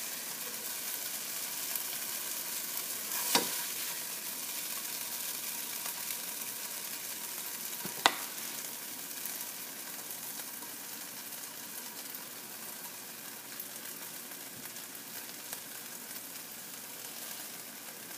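Ginger chicken stir fry sizzling in a nonstick frying pan as it is stirred with a spatula, the sizzle slowly dying down. Two sharp knocks stand out, about three seconds in and a louder one about eight seconds in.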